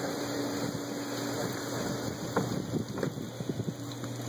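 Wind buffeting the microphone over a steady low hum. From about two seconds in there is a scatter of short clicks and knocks, likely from handling the rod and reel during the fight.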